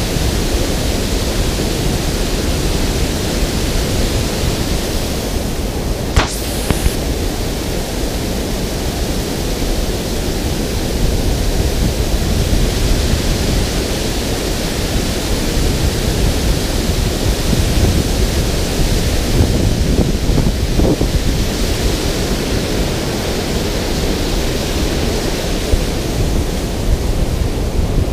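Water pouring over a concrete dam spillway in a loud, steady rush. A single brief click comes about six seconds in.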